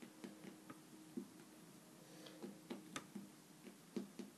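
Faint, irregular soft clicks and taps of fingers pressing and shaping play dough on a ceramic tile surface, the loudest about three and four seconds in, over a faint low hum.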